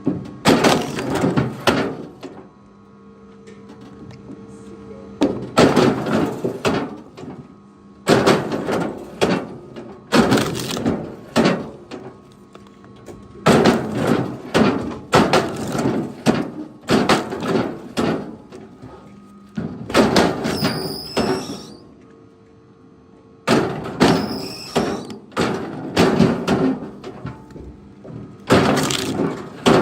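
Pieces of firewood knocking and clattering together in repeated bursts of a second or more, a few seconds apart.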